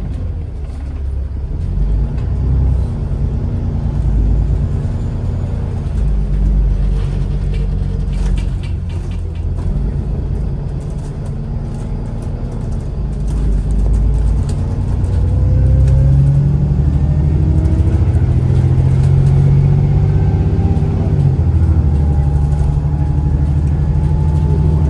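ADL Enviro 400 MMC double-decker bus with ZF automatic gearbox heard from inside while under way: engine running with a low rumble, then pulling harder, louder, with rising whines from about fourteen seconds in as it accelerates. A short run of clicks comes about seven to nine seconds in.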